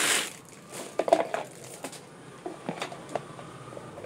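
Clear plastic bag crinkling as a vegetable slicer is pulled out of it, loudest at the start and dying down about half a second in. Light clicks and knocks of the plastic slicer being handled follow.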